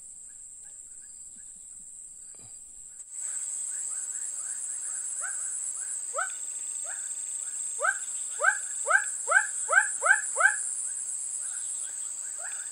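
A frog calling repeatedly, short upward-sweeping calls at about two a second, starting about three seconds in and loudest near the end, over a steady high-pitched drone of insects.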